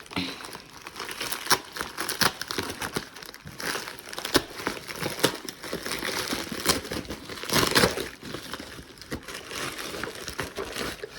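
A mailed package being unwrapped by hand: packaging crinkling and rustling throughout in irregular sharp crackles, loudest about eight seconds in.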